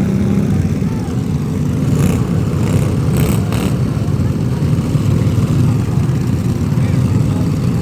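Steady low rumble of a running engine, with a few brief knocks or clicks about two to four seconds in.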